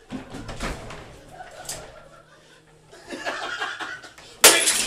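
Men's laughter and voices, then about four and a half seconds in a sudden loud crash with a high ringing: a drinking glass smashing.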